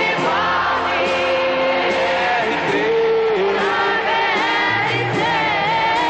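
Live soul music: several voices singing held, bending notes over a band with drums.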